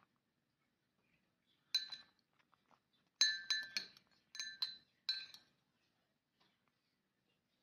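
Metal fork clinking against a porcelain cup: one clink a little under two seconds in, then a quick series of about five more, each ringing briefly.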